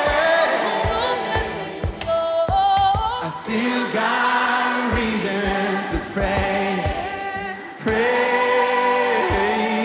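A gospel worship song with a choir singing long, held notes over music.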